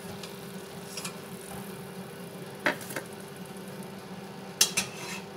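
A few light clinks of kitchenware, one pair and then a louder pair about two seconds later, over a steady low hum.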